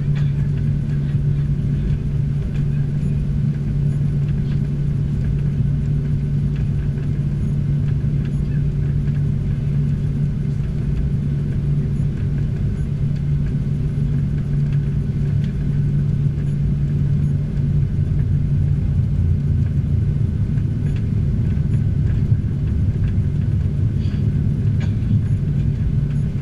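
Boeing 737 taxiing at low thrust, heard inside the passenger cabin: a steady low jet-engine drone with a constant hum and no change in power.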